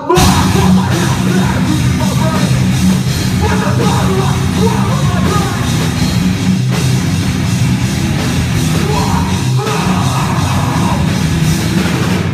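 Hardcore band playing loud live: distorted electric guitars, bass and drum kit, with shouted vocals over them. The whole band comes in together at the start, after a ringing held guitar note.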